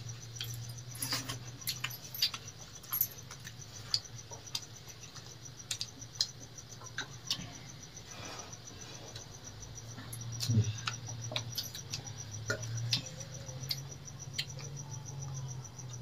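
Eating by hand from steel plates: scattered small clicks, scrapes and chewing smacks of fingers working rice and curry. Under them a steady, fast cricket trill and a low hum.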